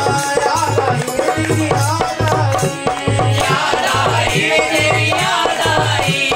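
Devotional bhajan: a man singing to a harmonium, with a steady low drum beat and shaken percussion.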